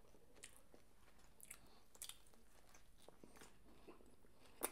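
Faint, scattered crunches and clicks of someone biting into and chewing a fried fish sandwich, with one sharper click near the end.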